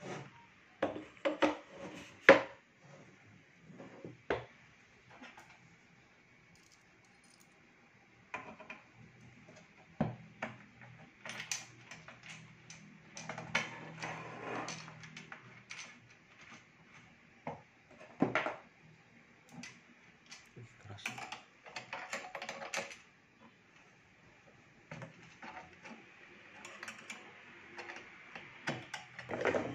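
Metal parts of a Freesub P8001X heat press being assembled by hand: irregular clinks and knocks as the post is fitted to the steel base plate, a bolt is pushed through and a nut is tightened with a spanner. The knocks come in short clusters with quiet gaps between them.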